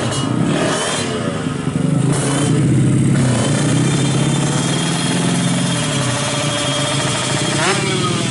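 Suzuki Smash motorcycle's bored-up 130cc single-cylinder four-stroke engine running through an aftermarket AHRS exhaust, its revs rising and falling, with a quick sharp rev and drop near the end.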